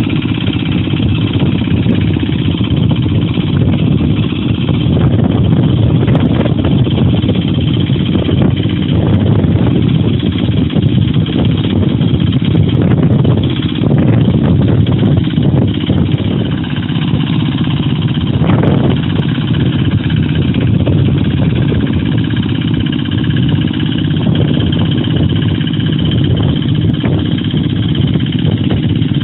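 Single-cylinder diesel engine of a two-wheel hand tractor (walk-behind rotary/plough tractor) running steadily under load while ploughing a wet rice paddy.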